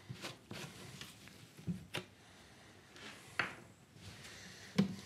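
Handling noises as a plastic canister of resin hardener is picked up and set down on a workbench: several short knocks and clatters, the loudest one near the end.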